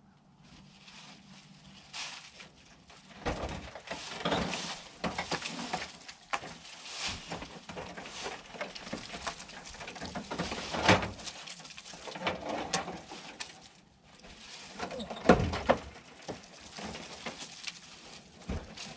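Rusty corrugated tin roofing and old porch wood being worked loose by hand: irregular scraping, rattling and knocking. There is a sharp knock past the middle, and the loudest clatter comes about three-quarters of the way through.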